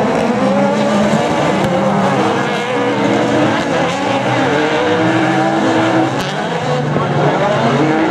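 Several autocross buggies racing on a dirt track, their engines revving up and down at overlapping pitches.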